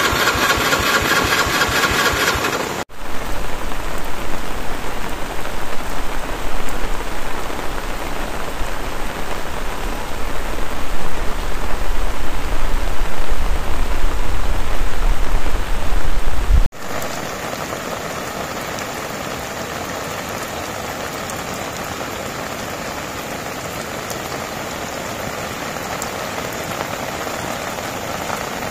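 Heavy rain pouring steadily, heard in three stretches split by sudden cuts about three and seventeen seconds in; the middle stretch carries a heavy low rumble under the rain.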